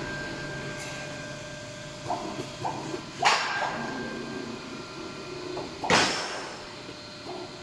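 Steel angle bars clanking and knocking as a CNC angle punching line's transverse loading device shifts them, over a steady machine hum. There are two loud clanks, about three and six seconds in, each with a short hissing ring, and lighter knocks between.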